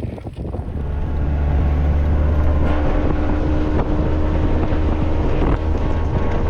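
An engine running steadily as a low hum, growing louder about a second in, with wind buffeting the microphone.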